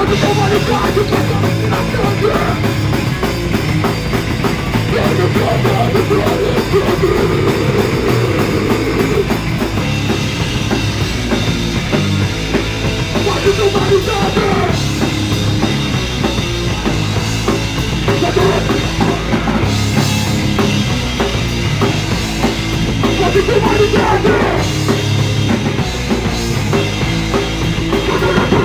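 A punk rock band playing loud and without a break, with the drum kit driving hard, recorded live on a phone's microphone.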